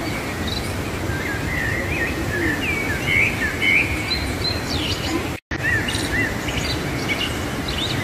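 River whitewater rushing steadily through a narrow rock canyon, with small songbirds chirping repeatedly over it, busiest a few seconds in. The sound cuts out completely for an instant a little past halfway.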